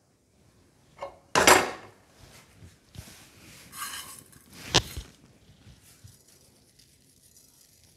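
Tableware clinking and scraping: a few separate knocks and clatters, the loudest a short clatter about a second and a half in, and a sharp clink near the five-second mark.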